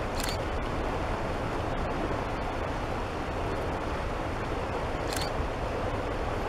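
Steady rushing of a shallow river over rocks, mixed with wind on the microphone. Two brief high swishes break in, just after the start and about five seconds in.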